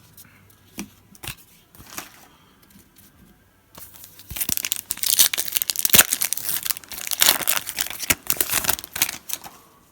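A trading card pack wrapper being torn open and crinkled: a few faint handling clicks, then about four seconds in a dense, crackly tearing and crumpling that lasts about five seconds.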